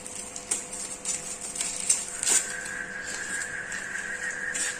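Workshop background: a steady mechanical hum of a few fixed tones, with scattered light clicks and taps.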